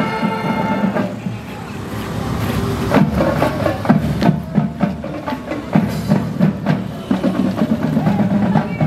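Marching band drums beating an uneven pattern of sharp hits over outdoor street noise. Before that, a held musical chord fades out about a second in.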